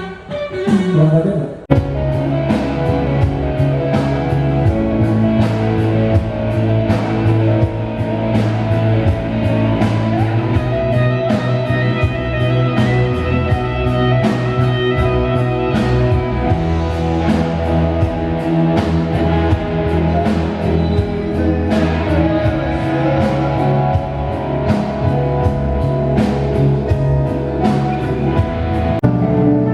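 Rock music over a PA system: electric guitar, bass and a steady drum beat, with the full band coming in about two seconds in.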